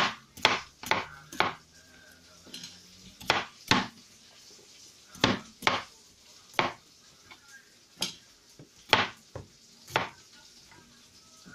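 Chef's knife chopping a cucumber into thick rounds on a wooden cutting board: about a dozen sharp knocks as the blade goes through and hits the board, irregularly spaced and often in quick pairs.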